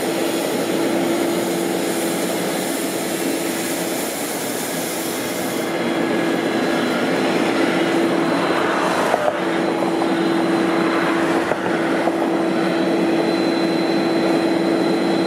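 Holder compact sidewalk tractor running, its front rotary broom spinning and brushing the pavement: a steady hum under a sweeping hiss, the higher hiss dropping away about six seconds in.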